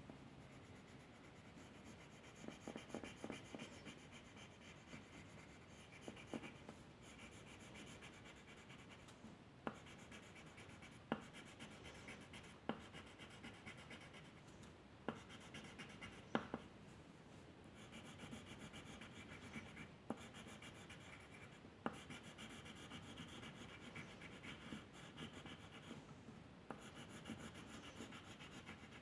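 Faint scratching of a drawing tool moving over paper in strokes that come and go, with about seven sharp ticks through the middle stretch.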